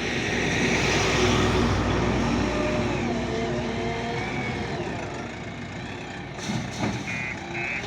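JCB backhoe loader's diesel engine running hard under load, loudest about a second in, its pitch rising and falling as the machine works. Near the end a reversing alarm starts beeping in a steady rhythm.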